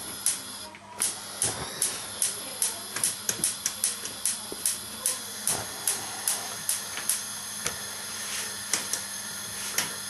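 Gas hob's spark igniter clicking in quick, uneven succession, about three clicks a second, thinning to a few scattered clicks after about seven seconds, over a steady hiss of gas from the burners being lit.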